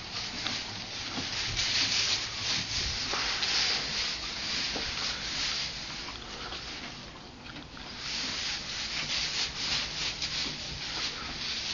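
Shetland ponies nosing and pulling at dry hay in a feed bucket: a steady, scratchy rustling of hay full of small crackles, easing briefly a little past halfway.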